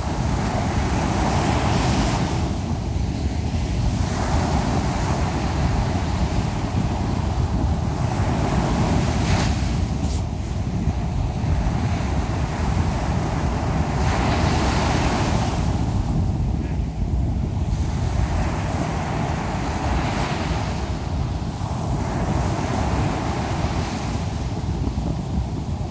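Ocean surf breaking and washing up a sand beach, swelling and fading every four to six seconds, over a steady low rumble of wind on the microphone.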